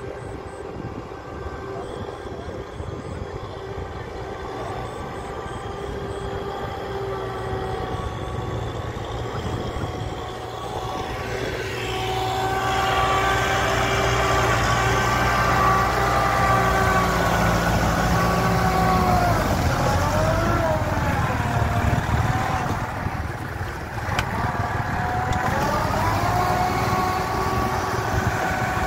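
Diesel engine of heavy farm machinery working hard. It grows louder about twelve seconds in, sags in pitch around twenty seconds, drops off briefly a few seconds later, then revs back up.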